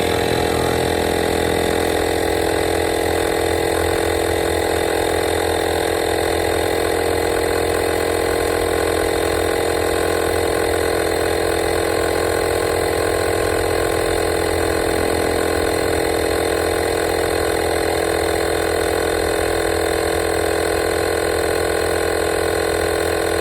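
Portable 12-volt tire inflator's compressor running steadily, a loud, even buzzing hum, as it pumps air into a car tire.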